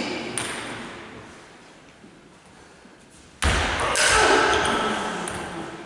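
Ping pong rally: a few sharp clicks of the ball near the start, then a sudden loud thud about three and a half seconds in, followed by a noisy wash that fades over the next two seconds.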